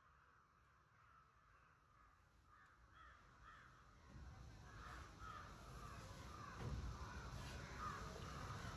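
Crows cawing faintly, many short caws in quick succession, getting louder from about four seconds in over a low rumble.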